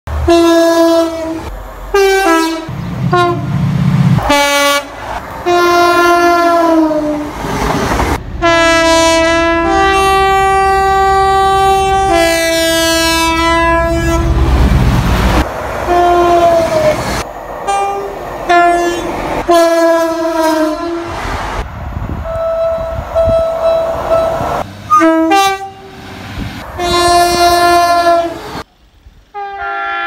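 Two-tone horns of British passenger trains, sounded over and over as short and long blasts alternating between a high and a low note, several trains one after another with sudden cuts between them. Around the middle a long two-note blast sounds over the rumble of a train running through the station.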